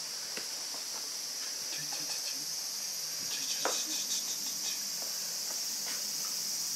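A steady, high-pitched insect chorus buzzes without a break. A few faint clicks and knocks sound over it, the clearest a little past halfway.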